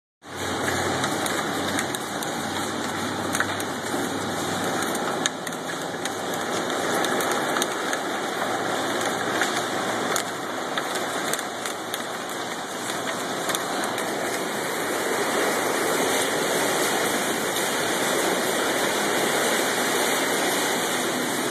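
Heavy rain and hail driving against window glass in a thunderstorm: a steady wash of noise with many sharp ticks of hailstones striking the panes.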